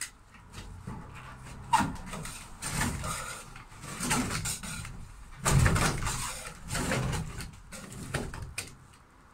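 Irregular scraping and clicking from a hand tool worked in short strokes against a caravan's ceiling panel, the strongest stroke about five and a half seconds in.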